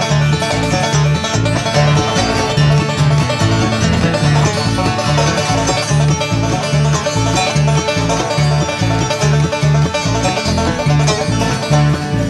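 Bluegrass music: banjo picking over a steady, regular bass beat.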